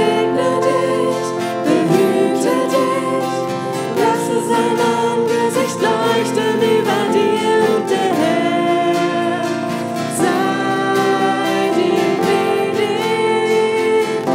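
A woman singing a worship song into a microphone, accompanied by strummed acoustic guitars.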